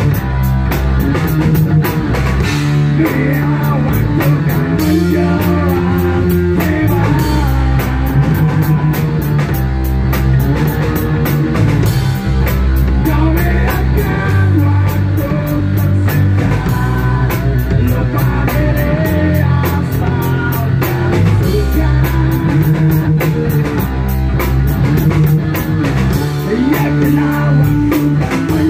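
A rock band playing live: a drum kit keeps a steady beat under electric guitar and bass guitar, with a singer.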